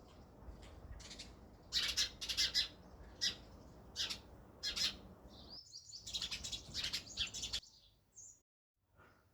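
House sparrows chirping: short, high chirps in quick clusters, thickest about two-thirds of the way through, over a low background rumble, and all of it cuts off suddenly near the end.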